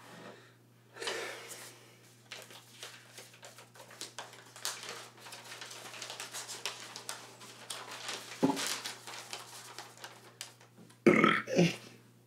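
A sheet of paper rustling and crinkling as it is taken out, unfolded and handled, with many small crackles. Near the end comes a loud, short throaty vocal sound in two parts.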